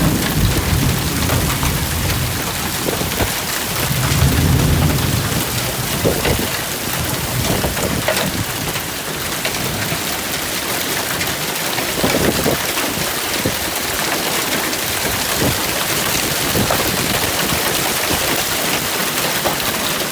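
Hail falling hard, a dense, steady patter of stones striking the ground and hard surfaces. Low rumbles at the start and again about four seconds in.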